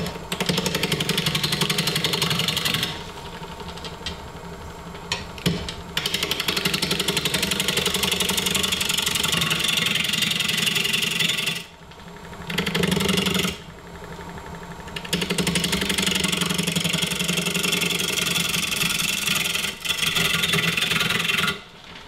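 Wood lathe spinning a green walnut bowl blank while a turning tool hollows out the inside, the cut running in long passes. The cutting drops back to the quieter run of the lathe alone about 3 seconds in and again around 14 seconds, with brief breaks near 12 seconds and near the end.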